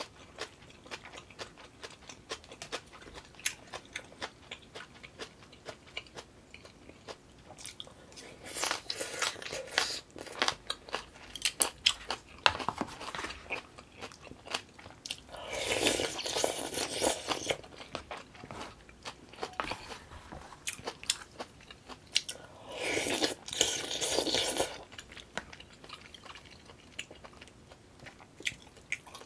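A person eating close to the microphone: chewing and crunching with many small mouth clicks. Twice there is a longer noisy slurp of about two seconds, sipping yukgaejang, a spicy beef soup, from a spoon.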